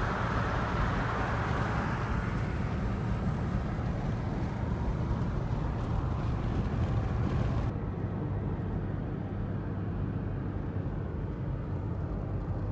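Steady road and wind noise from inside a moving car, over a low steady hum from the engine and tyres. About two-thirds of the way through, the hiss drops off suddenly and the sound turns duller.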